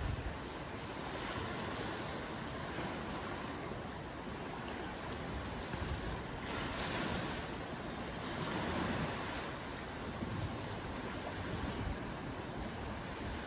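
Small waves washing in against the shore and the old wooden pier pilings, a steady rush that swells and eases every few seconds, with wind buffeting the microphone.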